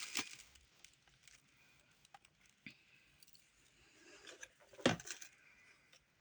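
Faint clicks and rattles of the Bissell CleanView Revolution's plastic dust container being handled and emptied, with one sharper knock about five seconds in.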